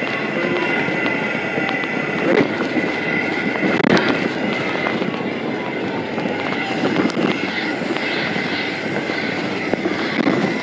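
Ambulance patient compartment while driving: steady road and cabin noise with scattered rattles and clicks from equipment, and a faint steady whine.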